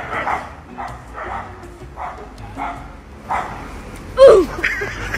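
A dog barking repeatedly, short barks about every half second, with a louder, falling cry about four seconds in.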